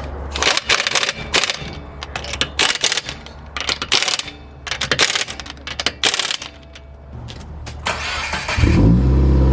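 A run of short, sharp rasping noises, then about 8.6 seconds in the Subaru WRX's turbocharged flat-four, with its muffler deleted, cranks, catches with a brief flare and settles into a loud, steady idle.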